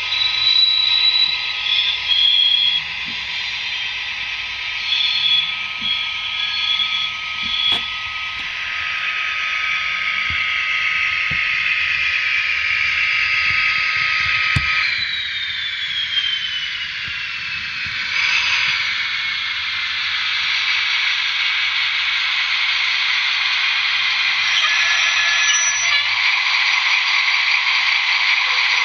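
Onboard digital sound decoder of an HO-scale REE Models BB 67300-series diesel locomotive playing its diesel engine sound through the model's small speaker: a steady, thin, high running sound with whistling tones, a falling whistle about halfway through, and a few light clicks.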